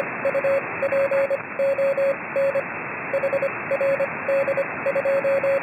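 Morse code tone of about 600 Hz, keyed in dots and dashes with a longer pause about two and a half seconds in, over steady static hiss that is cut off above about 2.8 kHz, as heard on a shortwave receiver.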